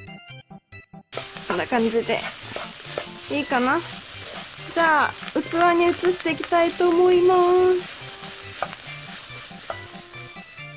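Kimchi fried rice sizzling in sesame oil in a nonstick frying pan as it is stirred and tossed with a spatula; the sizzle starts about a second in. Through the middle a loud pitched sound slides up and down several times, then holds one steady note.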